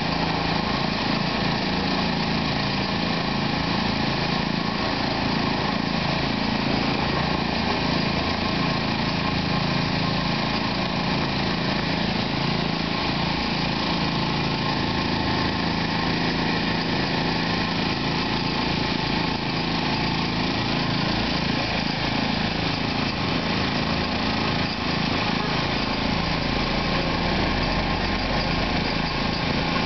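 Small portable gasoline generator engine running steadily at a constant speed.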